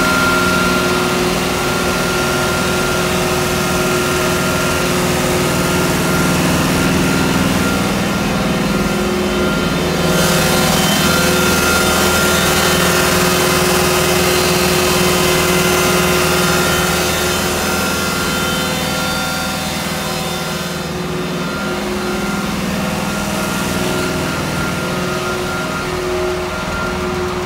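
FMC LMD2000 deicer truck's machinery running steadily: a constant engine-and-pump hum with a hiss over it. The hiss and overall level drop a little about 21 seconds in.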